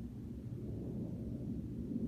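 Boeing 737-700's CFM56-7B jet engines at takeoff climb, heard as a low rumble that grows steadily louder.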